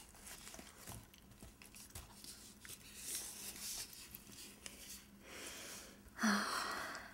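Soft, faint handling of wrapped soap bars: light rustling, small taps and scratches of fingers on paper and a cardboard soap box. A louder breathy sound about six seconds in.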